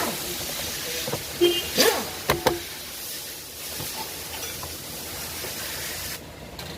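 A few sharp knocks and clicks of parts and tools being handled while a car's steering column is dismantled, four of them between about one and a half and two and a half seconds in. They sit over a steady hiss that cuts off suddenly near the end.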